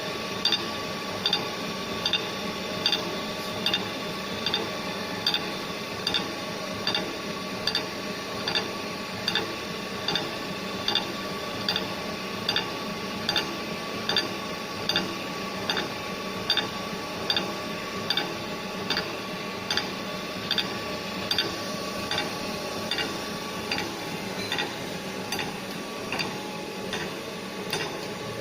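GD 450Q automatic circular saw blade grinder running, with a steady motor hum. Over it comes a regular tick-and-grind about every three-quarters of a second as the machine indexes the blade and grinds the bevel on one tooth after another.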